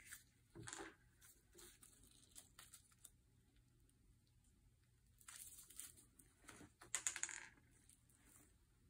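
Faint handling of plastic syringes and their packaging: small clicks, taps and crinkles, with a cluster a little after five seconds in and the loudest few sharp taps around seven seconds in.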